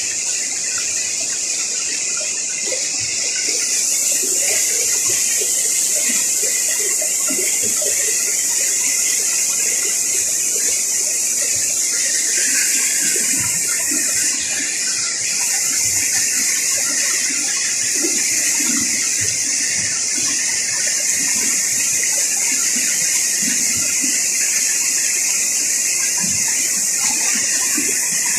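Rushing river water heard underwater: a steady hiss of current and bubbles with faint scattered pops and crackles.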